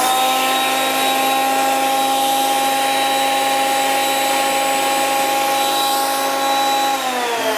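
Parkside PADM 1250 A1 planer-thicknesser running at full speed with a steady whine. About seven seconds in it is switched off, and its pitch falls as the cutterhead winds down.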